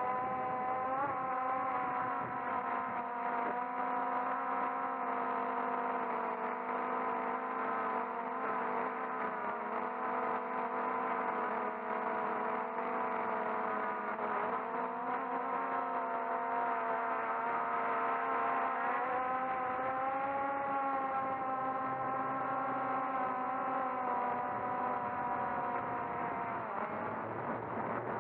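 Electric motors and propellers of a small multirotor drone whining steadily, heard from the camera mounted on it; the pitch drifts up and down now and then as the throttle changes.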